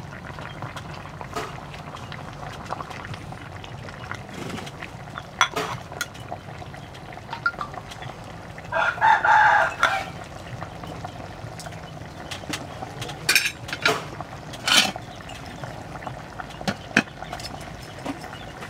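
A rooster crows once, about halfway through. There are a few sharp clinks of a metal ladle and spoon against the wok and bowl.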